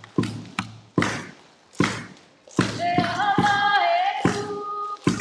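Hula accompaniment: percussion beats at an uneven rhythm, with a voice singing one held, wavering note about three seconds in.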